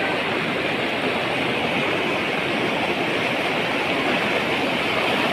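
Floodwater rushing in a steady, unbroken rush of water noise.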